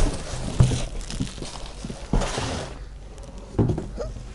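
Protective plastic wrapping on a scooter seat rustling and crinkling as the seat is handled and lifted out of its cardboard box, with a few dull knocks.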